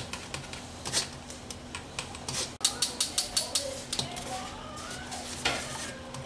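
Metal spoon stirring, scraping and tapping against a stainless steel mesh strainer as doenjang and gochujang paste are worked through it into stock in a steel pot. There is a quick run of taps about halfway through.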